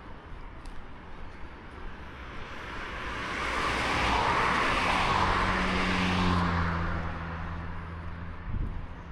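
A motor vehicle passing by: tyre and engine noise swell up over a few seconds and fade away, leaving a low engine hum that drops slightly in pitch. There is a short low thump near the end.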